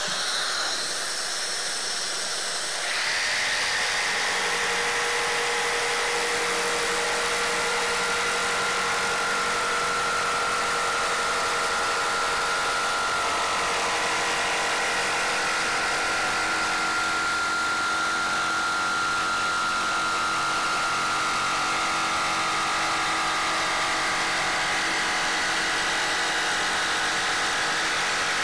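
Dust extractor running with a steady rushing hiss. About three seconds in, a Bosch JS572 barrel-grip jigsaw starts up over it and runs steadily with an even motor tone, cutting a back-bevel along a scribe line in a plywood panel.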